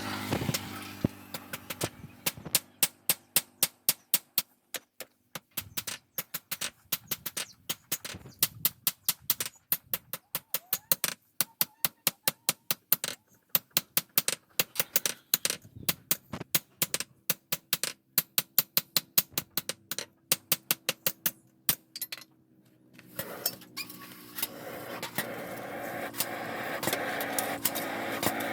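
Hand hammer striking steel on an anvil, sharp metallic blows at about two to three a second in runs with short pauses. A steady machine hum starts up again near the end.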